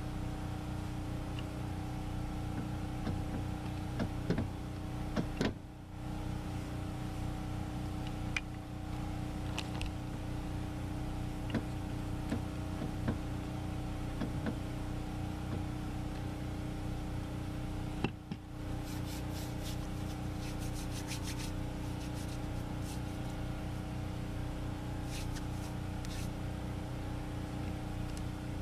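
A steady mechanical hum of a running motor, several even tones, with scattered light knocks and clicks from a wooden rolling pin working pizza dough on a table.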